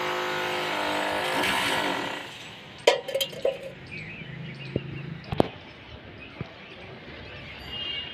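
A vehicle in the street below gives a steady pitched drone with many overtones for about two and a half seconds, then fades. A few sharp knocks follow, the loudest about three seconds in and again about five seconds in.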